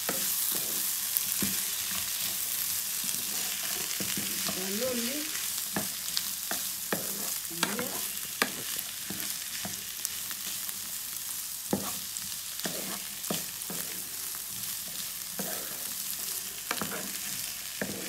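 Shrimp, corn and mixed vegetables sizzling in a frying pan, with a steady hiss, while a wooden spatula stirs them, scraping and knocking against the pan now and then.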